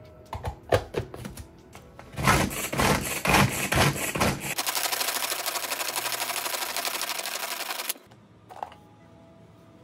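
Pull-cord manual food chopper mincing carrot and green pepper: a few clicks as the pieces drop in and the lid goes on, then rough rattling pulls for about two seconds, then a fast, even clicking whirr for about three seconds that stops suddenly, followed by a single clack.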